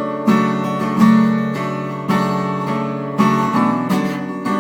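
Acoustic guitar strumming chords between sung lines, a strum about once a second with the chords ringing on.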